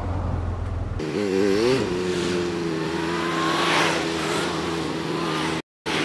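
Motorcycle engine heard from the rider's own bike with wind rumble. About a second in the sound changes abruptly; the engine revs up and down briefly, then runs at a steady pitch. The sound cuts out for a moment near the end.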